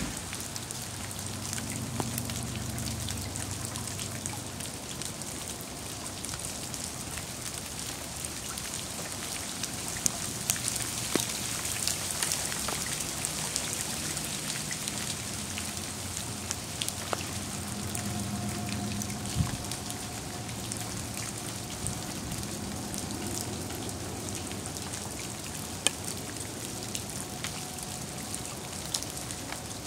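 Steady patter of wet snow and meltwater falling on leaves, cars and wet pavement, with scattered sharper drips.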